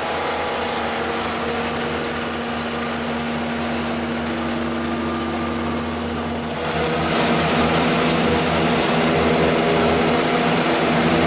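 Red Roo 730Xtreme wood chipper's petrol engine running steadily. About six seconds in it grows louder and noisier.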